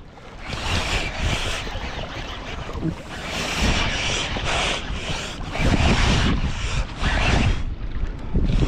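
Wind buffeting the microphone in uneven gusts over the wash of sea water around a kayak, with the low rumble swelling past the halfway point.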